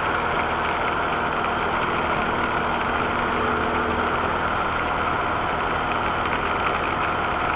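Rastrojero pickup driving on a rain-soaked road, heard from inside the cab: a steady engine drone mixed with an even hiss of tyres on the wet asphalt.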